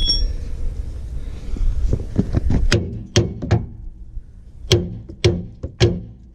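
Hammer blows on a rusted-in steel trailer hitch, each a sharp metallic strike with a short ring. There are three quick strikes just under three seconds in, then four more after a brief pause.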